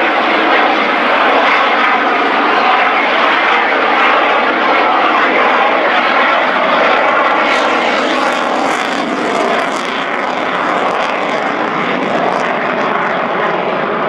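A Eurofighter Typhoon's twin EJ200 jet engines, loud and steady, as the fighter flies a display pass overhead.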